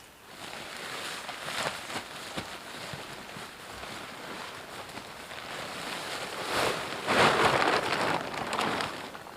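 Nylon tent fabric rustling and crackling as the tent is unpacked and shaken out, with a loud burst of rustling about seven seconds in.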